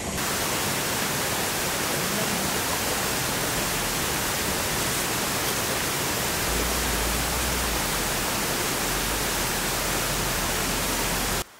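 A steady, even rushing hiss with no distinct events, which cuts off abruptly near the end.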